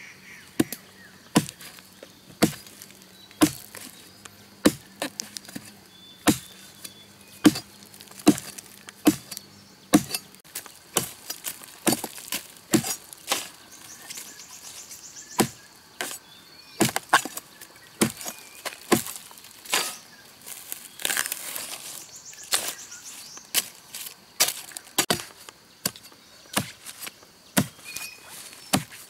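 Repeated chopping strokes of a blade cutting palm tubers. The strokes come about once a second at first, then faster and less regular from about a third of the way in.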